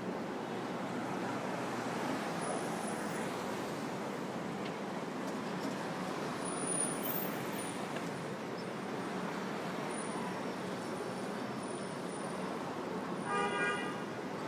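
City street traffic, a steady wash of passing vehicles. Near the end a vehicle horn gives one short honk.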